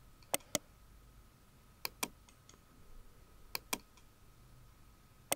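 Computer mouse clicking as spline points are placed: four pairs of sharp clicks, each pair about a fifth of a second apart, coming every second and a half to two seconds.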